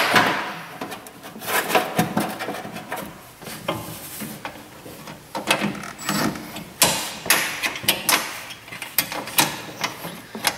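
A wrench and metal parts inside a car door: irregular clicks, knocks and scrapes as a nut on the power window regulator mount is tightened by hand in a cramped space.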